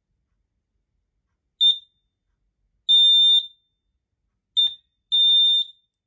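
Smart Detect wireless heat detector's alarm sounder giving high-pitched beeps in two pairs, each a short chirp followed by a longer beep about a second later, while its main button is held down to clear its stored pairing codes.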